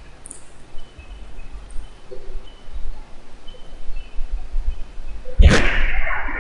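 Quiet background with faint short high chirps and a low rumble. Near the end, loud music, guitar by the sound of the next seconds, cuts in suddenly.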